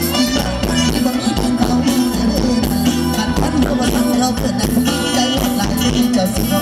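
Live music from an Isan stage band, played through a loud outdoor sound system, with a steady beat.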